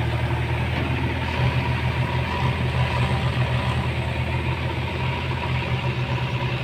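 Diesel tractor engine running steadily under load, a low even throb, as it pulls a trolley heaped with soil.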